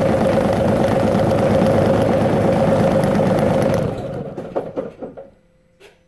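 John Deere 3038E's three-cylinder diesel engine being cranked on the starter without catching, a healthy crank but no start. The steady cranking stops about four seconds in, followed by a few light clicks.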